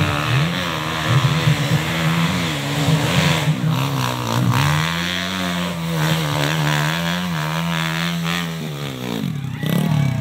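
Dirt bike engine revving hard on a steep dirt climb, its pitch rising and falling with the throttle. The engine cuts out abruptly about nine seconds in as the bike stalls and tips over on the slope.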